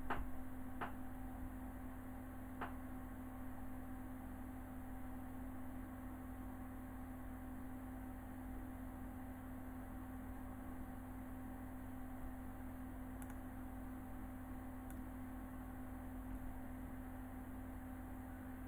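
Steady electrical hum with a constant low tone, the background noise of the recording setup. A couple of faint clicks come about one and three seconds in.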